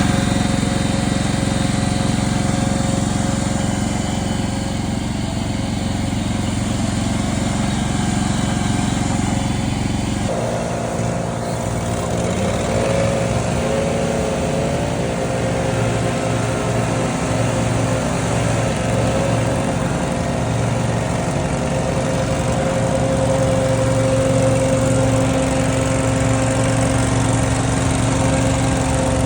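Scag Windstorm stand-on debris blower running hard, its engine and blower fan making a loud steady drone. The pitch of the drone shifts abruptly about ten seconds in and wavers a little after that.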